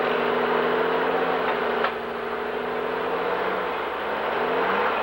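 Super Stock pulling tractor's turbocharged diesel idling with a steady, slightly wavering whine. A single sharp click comes about two seconds in.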